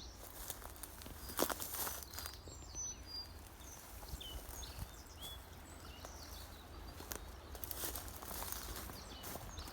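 Small birds chirping in short, scattered calls over a low outdoor rumble, with a few crunches or knocks, loudest about one and a half seconds in.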